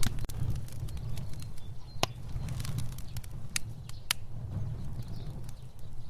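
A fire burning, with a steady low rumble of flames and scattered sharp crackles and pops; the clearest pops come right at the start, about two seconds in, and twice around four seconds.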